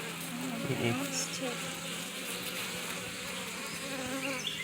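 Honeybees buzzing around an open hive, with individual bees flying close by as several wavering hums.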